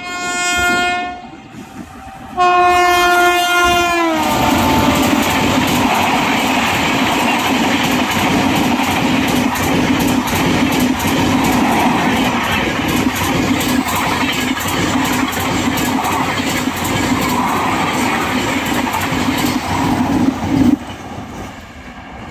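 WAP-7 electric locomotive's horn sounding as it approaches at about 130 km/h: one blast ends about a second in, and a second blast drops in pitch as the locomotive passes. Then the Garib Rath's coaches rush by with a loud steady roar and rapid clickety-clack of wheels over rail joints and points, cutting off sharply near the end as the last coach clears.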